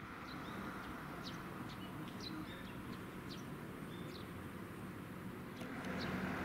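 Small birds chirping: short high calls scattered through, about one every second, over a steady low background hum.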